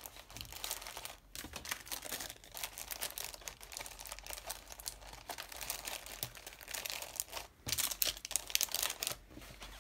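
Scrapbooking papers and embellishment packets rustling and crinkling as hands handle them and slip them into a decorated paper envelope, in quick irregular rustles that grow louder near the end.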